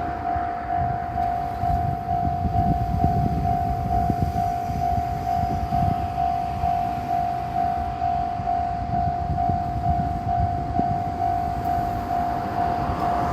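Japanese railway level-crossing warning bell ringing in an even, steady rhythm of about two strikes a second. Under it a low rumble with rapid clatter from a JR Tokushima Line diesel railcar running over the crossing.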